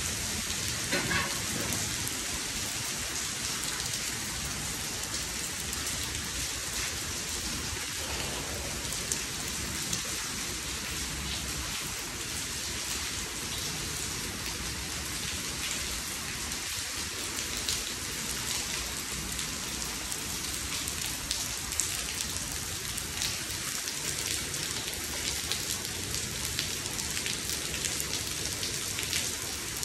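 Heavy rain falling steadily, with many separate close drop impacts ticking through the steady hiss.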